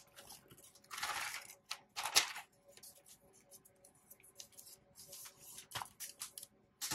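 Paper packaging rustling and sliding as the iPad in its paper wrap is handled and the wrap is folded back. There are two louder bursts of rustling about a second and two seconds in, then lighter, scratchier rustles.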